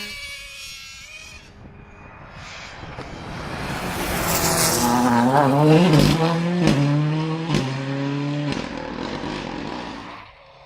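Rally car passing at speed on a gravel stage. The engine revs rise and fall in steps through gear changes, with a few sharp cracks, then the engine note cuts back and the car fades away.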